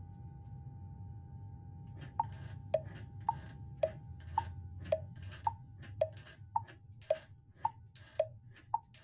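Clock ticking, a higher tick and a lower tock alternating a little under twice a second, starting about two seconds in over a low steady hum.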